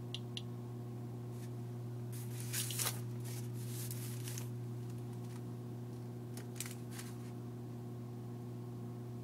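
Handling noise from about two seconds in: rustling and light knocks as a foil-wrapped lead shielding bar is moved and set on a wooden table. Underneath runs a steady low electrical hum. A few sparse, sharp high clicks from a Geiger counter sound twice at the start and again near the end.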